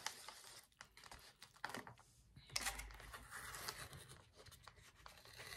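Faint crinkling and rustling of a plastic sauce packet and paper cup lid being handled, with scattered light clicks.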